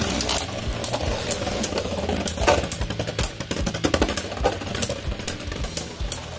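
Two plastic Beyblade Burst spinning tops, left-spin Geist Fafnir against a right-spin opponent, whirring and clattering in a plastic stadium, with rapid irregular clicks and knocks as they strike each other and the stadium walls.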